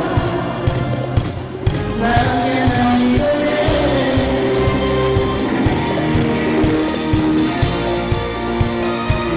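Live band playing Balkan pop-folk with a steady drum beat, and women's voices singing the melody from about two seconds in.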